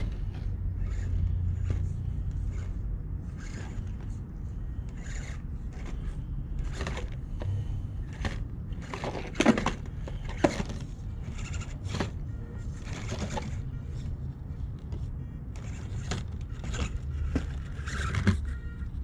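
1/24-scale ECX Barrage 4WD RC crawler climbing over river rocks, its tyres and chassis clicking and scraping on the stones, with two sharper knocks near the middle. A steady low rumble runs underneath.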